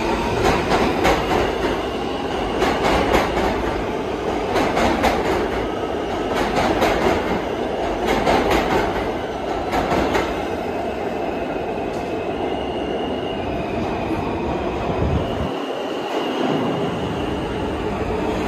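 R160 subway train running on the track with a steady rumble. Its wheels click over rail joints through the first half, and faint, brief wheel squeal comes later.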